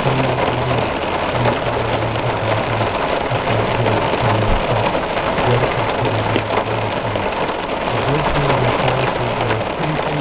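Heavy rain pouring down in a steady, loud hiss, with music and its low bass notes playing underneath.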